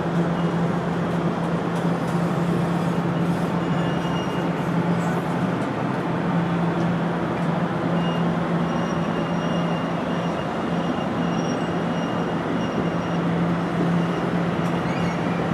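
Commuter train at the station: a steady rumble with a constant low hum. A faint high whine comes and goes, mostly in the middle of the stretch.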